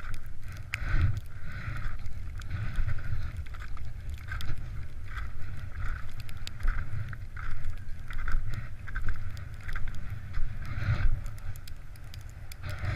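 Skis scraping and hissing over rough, wind-affected snow in irregular pulses, with wind rumbling on the camera's microphone.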